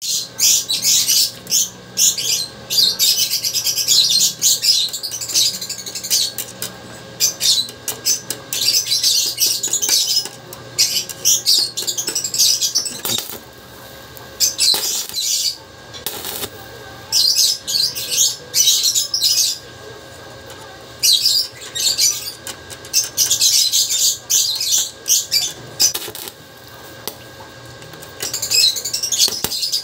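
Stick (arc) welding on a steel wire grid: the electrode arc crackles and sizzles in runs of one to three seconds, stopping and restarting about ten times.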